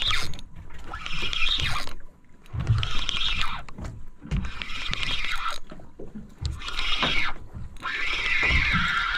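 A spinning reel being cranked in about six short bursts, its gears giving a rising-and-falling whir, with brief pauses between as the angler pumps the rod and reels in a hooked fish. A low rumble of wind and water runs underneath.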